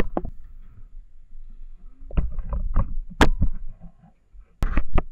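Water splashing and sloshing in three bouts, with dull thuds and a few sharp knocks, as a cast net is worked and hauled in at a muddy pond edge.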